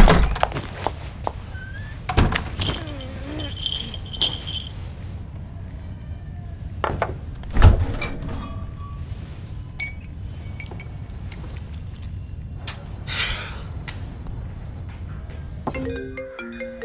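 Household kitchen sounds over a steady low hum: several sharp thuds and clicks, the loudest about eight seconds in as a refrigerator door is opened. A few stepped, marimba-like music notes begin near the end.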